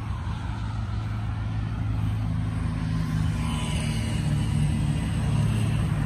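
Steady low hum of two ultrasonic fog machines running, with the fans that blow out the mist and cool the units going continuously.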